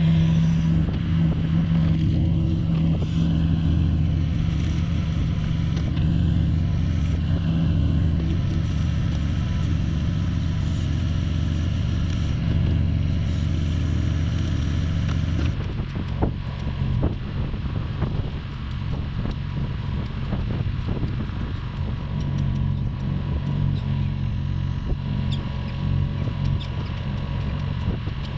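Engine of a small work machine running steadily. A little over halfway through it cuts to a different, quieter engine sound with a few sharp clattering knocks.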